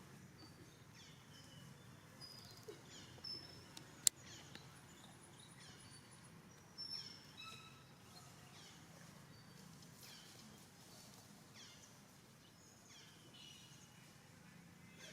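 Faint, high-pitched animal calls: many short, falling squeaks or chirps scattered throughout, with one sharp click about four seconds in.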